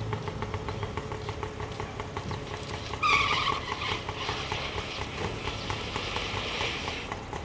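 Small sedan's engine running on a street, with an even ticking throughout. About three seconds in, a louder rush of tyre and traffic noise joins it and lasts several seconds.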